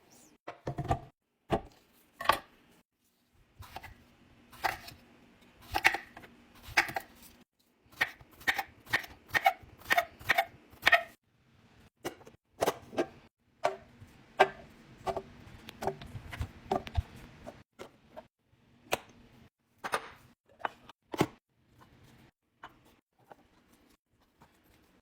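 Food and drink containers being set down and arranged in a fridge: a long run of separate clicks, knocks and light clinks, some with a brief ring, coming several a second for a while in the middle.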